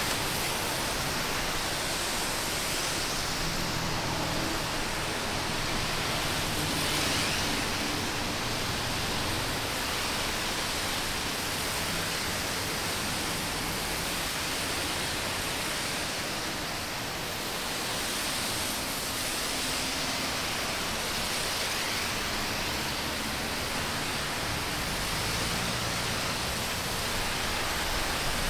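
Highway traffic on a wet road: a steady hiss of tyres spraying through water, swelling gently every few seconds as vehicles pass, with a low engine rumble beneath.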